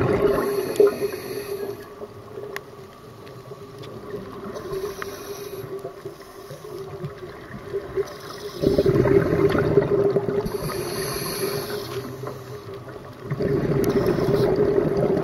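Scuba diving gear underwater: a regulator hissing on inhalation in short bursts, and exhaled bubbles rushing out in two long loud bursts in the second half, over a steady low hum.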